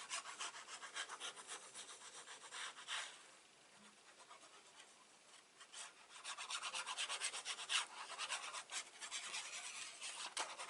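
Rapid rubbing strokes across paper as cardstock and patterned paper are glued and pressed together, in two spells with a quieter gap of about three seconds in the middle.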